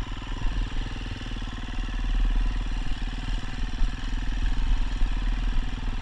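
Single-cylinder off-road motorcycle engine running at low revs with a steady, rapid pulsing, heard from the rider's own bike.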